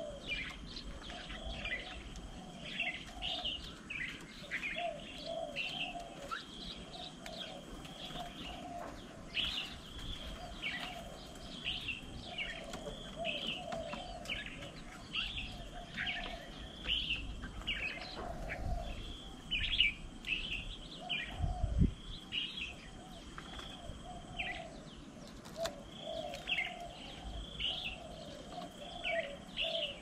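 Several birds calling and chirping at a feeding table: many short, high chirps, over lower repeated coos.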